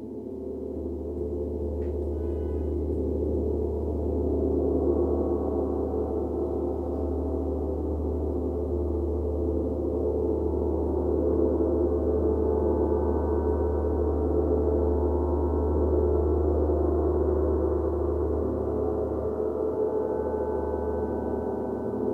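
Large gong played with a soft felt mallet. Its wash of sound swells over the first few seconds and then holds as a dense, steady shimmer of low tones. A brief higher ring comes about two seconds in.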